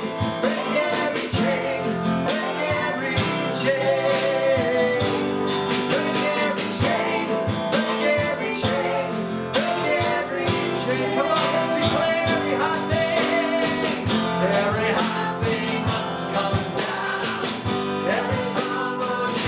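Worship song with singing over strummed acoustic guitar and a steady beat.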